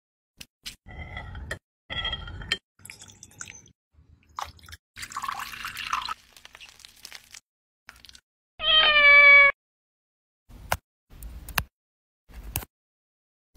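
A cat meows once, a short call falling slightly in pitch, about two-thirds of the way through; it is the loudest sound. Around it come short taps and clinks of a spoon against a drinking glass as fruit and cream are spooned into it.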